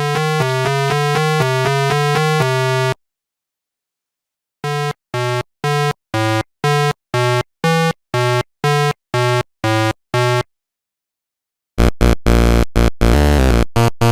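Electronic synthesizer music: a quick run of stepping notes, a pause, a string of short staccato notes about two a second, then a dense, jumbled flurry of notes near the end.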